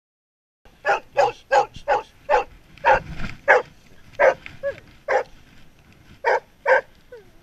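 A search and rescue dog held back by its harness, barking repeatedly in about a dozen short, sharp barks, keen to be released to search; a brief faint whine comes between barks. The barking starts suddenly just under a second in.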